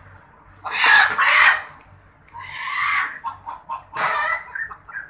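Live rooster held in the hand, squawking in distress: three loud squawks with shorter ones in between.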